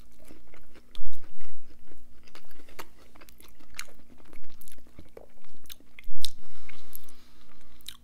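A person biting into and chewing a ranch-dipped chicken McNugget, with many irregular mouth clicks and crackles from the breaded coating.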